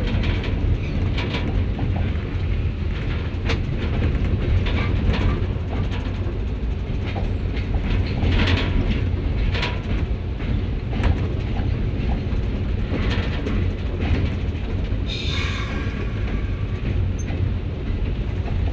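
ZCU30 diesel-electric locomotive heard from its cab as it rolls slowly through a rail yard: a steady low engine rumble with the wheels clacking and knocking over rail joints and switch points. Near the end a high whining tone rises over the rumble.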